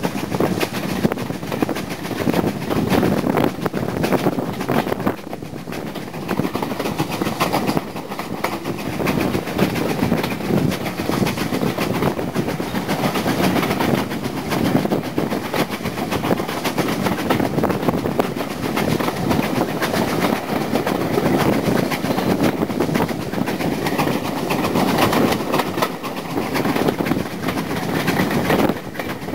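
Train carriage running at speed, heard from an open window: a steady rumble and clatter of wheels on the track with rushing air.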